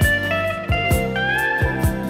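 Background music: a guitar melody with sliding notes over a steady beat.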